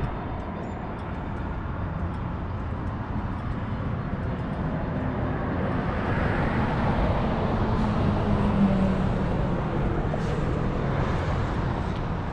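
Motor vehicle running: a steady low rumble of engine and road noise with a faint engine hum that swells a little in the middle.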